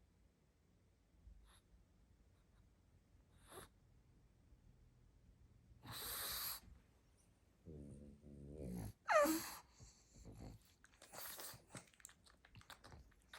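A pug making breathing noises: a noisy snuffle about six seconds in, a low grunting snore near eight seconds, then a short sound that falls sharply in pitch just after nine seconds, followed by a few softer snuffles.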